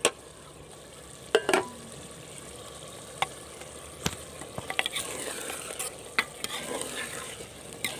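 Steel spoon stirring thick frying dal mash in a clay pot, scraping and clicking against the pot's sides, over a steady low sizzle. A few sharp knocks stand out, and the scraping gets busier about halfway through.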